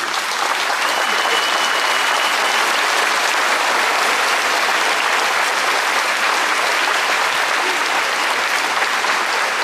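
Large crowd applauding steadily, with a short thin high steady tone lasting about a second and a half, starting about a second in.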